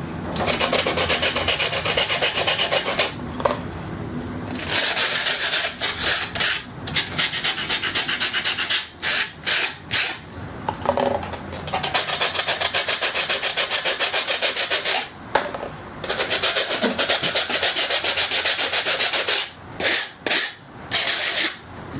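Hand sanding or rubbing the outside of a white model-aircraft fan pod tube with a small abrasive pad, in long runs of fast back-and-forth strokes. The runs break off in short pauses, with a few quick single strokes about nine seconds in and again near the end.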